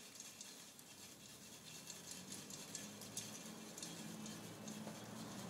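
Faint scattered crackles and ticks from a wood fire burning under a long-handled pan of roasting chestnuts, with a low steady hum coming in about halfway through.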